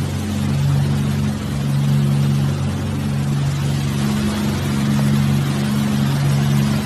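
Speedboat engine running steadily at speed: a constant low drone over the rushing hiss of the churning wake.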